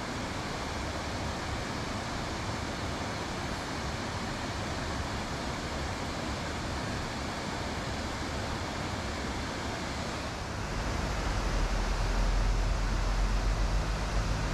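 Steady rush of river water running fast over a shallow stretch below a weir. About ten seconds in, a louder low rumble joins it.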